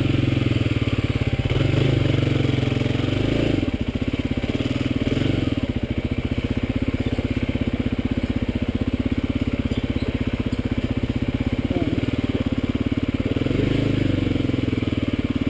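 Kawasaki KLX250SF's single-cylinder four-stroke engine running at steady low revs as the bike rolls down a leaf-covered trail.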